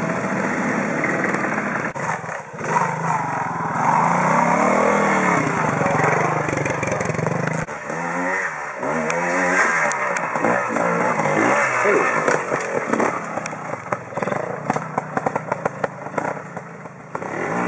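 Classic trials motorcycle engines revving at low speed over rocks, the pitch swinging up and down with repeated short throttle blips, which come quickly and often in the second half.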